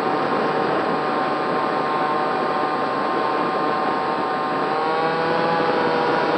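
Racerstar BR2208 2600KV brushless motor and propeller of a SkySurfer RC plane whining steadily in flight, with wind rushing over the airframe. The pitch rises slightly about five seconds in as the throttle opens a little.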